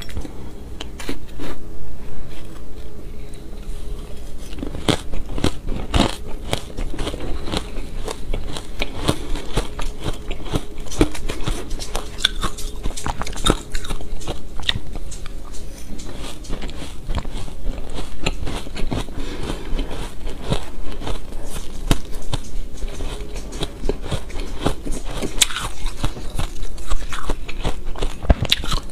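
Close-miked biting and chewing of fluffy shaved ice dusted with matcha powder: a dense, continuous run of crisp crunches, mouthful after mouthful.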